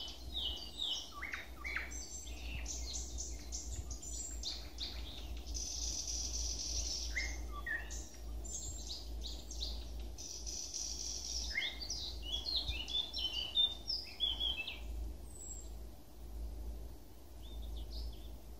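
Several songbirds singing in a leafy thicket: a busy chorus of varied chirps and trills, over a steady low rumble.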